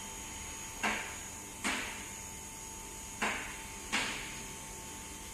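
Four sharp knocks at uneven spacing of roughly a second, each with a short fading tail, over a faint steady background with a thin high whine.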